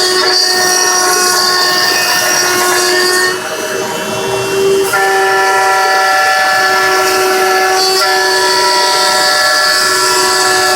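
CNC router spindle running and cutting, giving a loud, steady whine of several held tones over a hiss. The tone dips and shifts between about three and five seconds in as the cutting load changes, then settles again.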